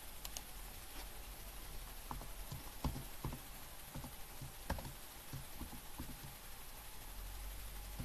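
Scattered, irregular light clicks and taps over a steady faint hiss, the sharpest about three seconds in and just before five seconds.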